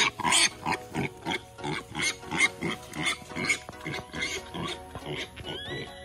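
A piglet squealing over and over while carried upside down by its hind legs, short squeals about three a second, with background music.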